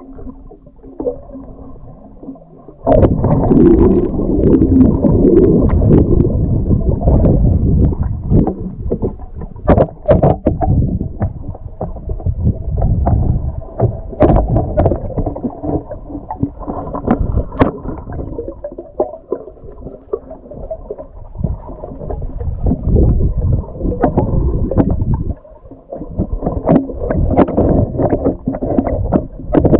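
Muffled underwater rumbling and gurgling picked up by a GoPro in its waterproof housing as a freediver swims among rocks, with scattered knocks and clicks. It gets much louder about three seconds in and drops away briefly near the end.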